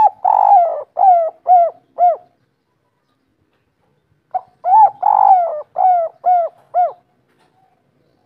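Spotted dove cooing in two phrases, the first already under way and the second about four seconds in. Each phrase has a couple of short notes, a longer drawn coo, then three short falling coos at the end, the 'kuk 3' pattern.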